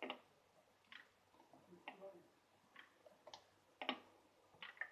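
Near silence with faint, light clicks about once a second, irregularly spaced: a metal tablespoon and a plastic oil bottle being handled over a steel mixing bowl as oil is measured out by the spoonful.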